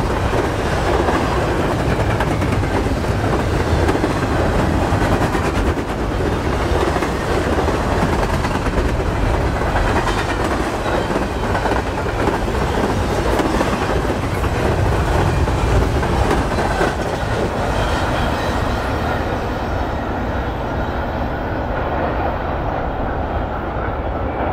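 Double-stack intermodal freight train's container well cars rolling past at speed: a loud, steady rumble of steel wheels on rail, with faint clicks over the rail joints. The higher hiss thins out over the last few seconds.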